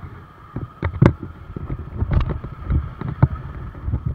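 Wind buffeting the camera's microphone: irregular low thumps and rumble, with a few sharper knocks.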